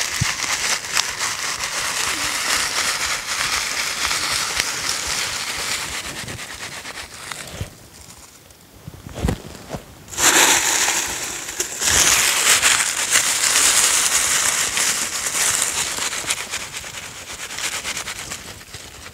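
Dry leaf litter crackling and rustling as gloved hands gather and spread it over a trap set. About halfway it goes quieter for a couple of seconds with a few soft knocks, then the crunching of leaves comes back louder and tapers off near the end.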